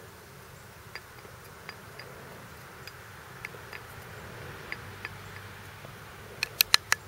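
Steel screwdriver tip poking and scraping at a caked block of oxalic acid crystals in an aluminum vaporizer pan, breaking it up: scattered light ticks, then a quick run of about five sharper clicks near the end.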